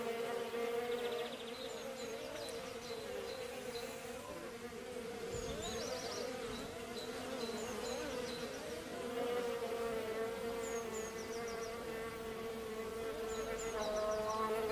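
Bees buzzing: a continuous hum around a single low pitch, with several overlapping buzzes whose pitches waver and cross as the bees move about.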